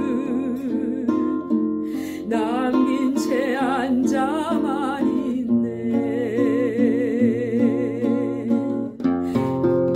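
A woman singing a slow ballad with vibrato on the held notes, accompanied by a plucked nylon-string classical guitar.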